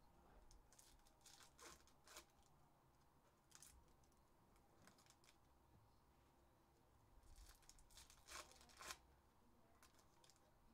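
Faint tearing and crinkling of Skybox Metal Universe hockey card pack wrappers being ripped open, with the cards handled between rips. The rustles come in short scattered clusters, the loudest a little past eight seconds in.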